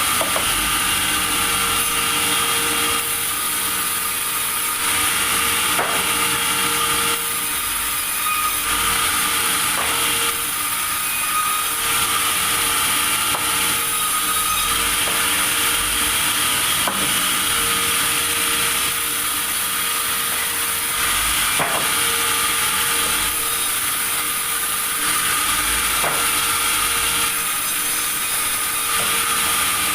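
Sawmill saw running and cutting timber: a steady, loud machine noise with a held tone throughout and a few scattered knocks.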